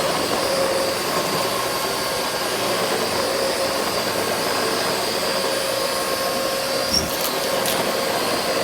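Vacuum cleaner running steadily, with a brief knock about seven seconds in.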